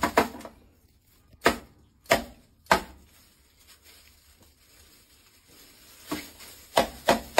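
A series of sharp knocks or clacks: one right at the start, three about half a second apart a second or two in, then a lull, and three or four more near the end.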